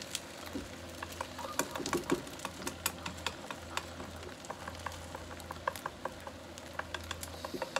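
Long wooden chopsticks tapping and scraping against a frying pan in quick, irregular clicks as they poke and stir beaten egg, with faint sizzling from the egg setting in the hot pan.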